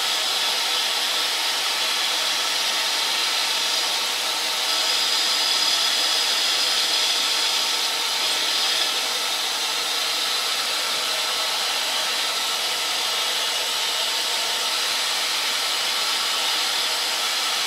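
Grizzly G0752 metal lathe running under CNC control, its spindle turning while the carbide insert takes an automatic rough profiling pass along the bar: a steady machine hum and whir, a little louder for a few seconds around the middle.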